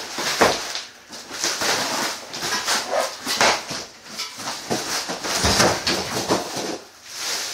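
Cardboard shipping box being pulled and torn away from a boxed air compressor: irregular rustling, scraping and tearing of cardboard, with a thump about half a second in and a heavier one about five and a half seconds in.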